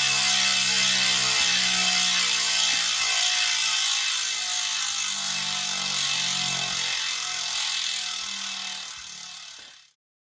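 DT Swiss ARC 1400 wheel's ratchet freehub buzzing as the spun wheel coasts. The buzz fades as the wheel slows, then stops abruptly near the end.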